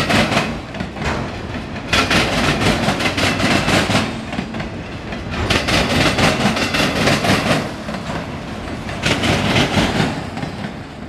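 Freight train of autorack cars rolling past, steel wheels clattering over the rails, with loud bursts of clatter about every three and a half seconds as each car's wheel sets pass and a steady rumble in between.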